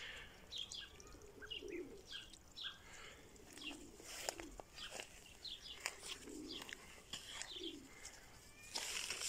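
Faint bird calls: low, short cooing notes repeating every second or so, like a dove's, mixed with many brief high chirps from small birds, and a few sharp clicks.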